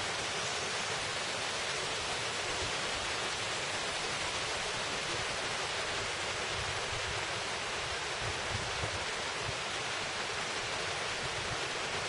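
Steady, even rushing of a mountain valley stream, unchanging throughout.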